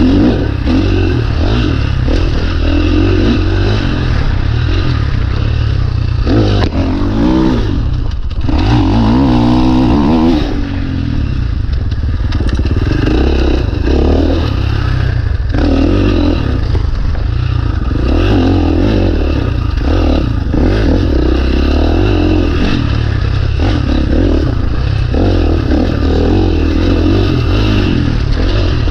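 2019 KTM 450 dirt bike's single-cylinder four-stroke engine under way, revving up and falling back again and again as the throttle is opened and closed.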